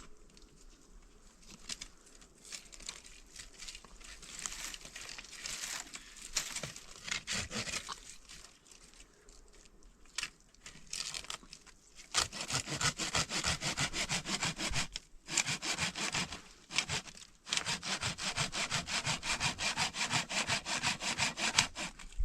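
Wood being sawn by hand with quick, steady back-and-forth strokes. The sawing is faint and broken at first, then louder and continuous from about halfway, with two brief pauses.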